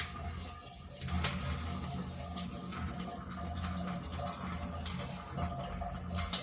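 Water being poured out of a Xiaomi Smartmi ultrasonic humidifier's water tank, running and splashing steadily with irregular sharper splashes.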